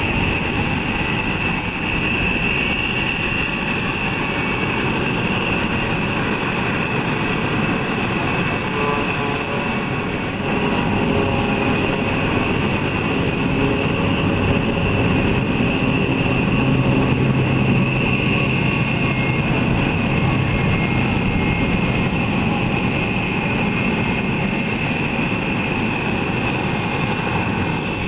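Rockwell B-1B Lancer's four General Electric F101 turbofan engines running as the bomber rolls past at low speed: a steady jet rumble with a high whine over it, growing louder about ten seconds in.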